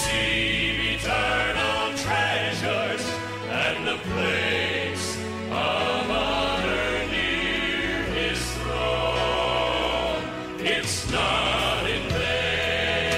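Background music: a choir singing a Christian gospel song in long held notes over a sustained bass accompaniment.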